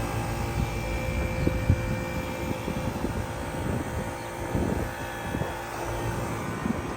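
HVAC unit running with a steady mechanical drone: several fixed tones over a low rumble, with a few soft low thumps here and there.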